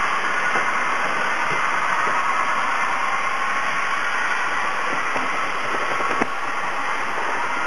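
Trix model freight train running on layout track: a steady whir of the locomotive motors and wheels, with a few faint clicks.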